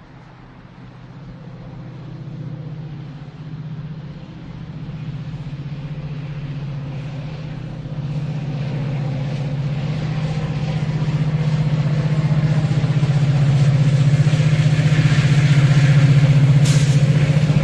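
Train approaching on a raised bridge, its low rumble growing steadily louder, with a brief high-pitched burst near the end.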